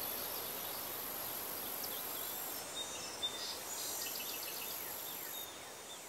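Summer wetland ambience: a steady high-pitched insect drone that cuts out a little under three seconds in, returns, and stops again near the end, with scattered bird chirps and a quick series of short notes in the middle of the stretch.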